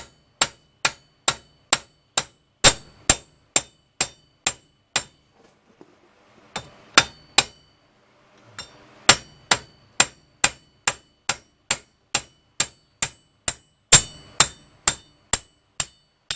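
Hammer blows on steel, pounding the rear wheel hub off its shaft on a 1998 Honda CR-V: steady strikes about two a second, each with a short metallic ring, broken by two brief pauses in the first half.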